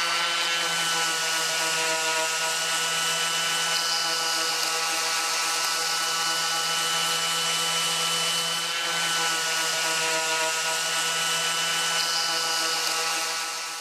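Handheld electric sander running steadily at speed: an even, high motor whine with a slight dip about nine seconds in, fading out near the end.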